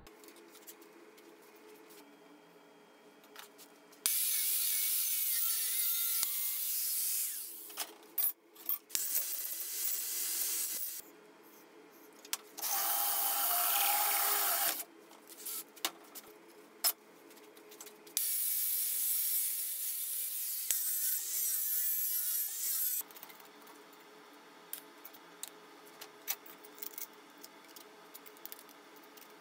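Handheld power grinder grinding the end of a metal workpiece clamped in a vise, in four bursts of a few seconds each. In the third burst the motor's whine drops in pitch as it is loaded. Scattered light clicks of metal parts being handled follow near the end.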